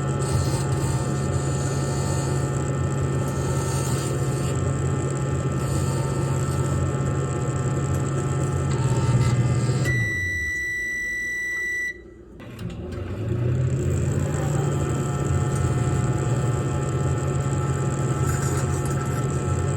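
Microwave oven running with a steady low hum. About halfway through, the hum dies away under one long high beep lasting about two seconds, then cuts out briefly before the humming builds up again.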